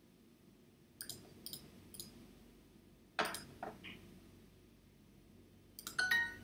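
Faint computer mouse clicks: three quick ones half a second apart, then a louder pair a little later. Near the end comes Duolingo's short correct-answer chime, signalling a right answer.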